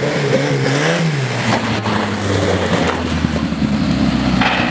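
Old farm tractor's engine being revved up and down in quick swings, then held at a steady high speed as the tractor drives off.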